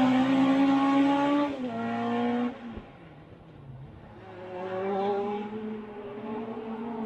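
Race car engine pulling hard out of a hairpin on a hillclimb course, with a shift up about a second and a half in, then fading as the car drives away. Around four seconds in the engine is heard again from further up the road, its pitch rising as it accelerates.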